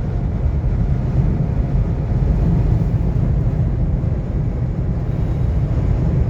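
Strong desert wind blowing hard against the microphone, a steady low rumble that surges and eases in gusts.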